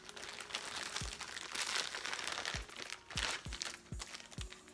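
Plastic packaging crinkling and rustling in irregular spurts as a bag of hair bundles is handled and opened, with a few soft low thumps of handling.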